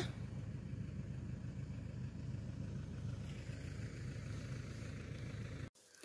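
Car engine running, a steady low hum that cuts off suddenly near the end.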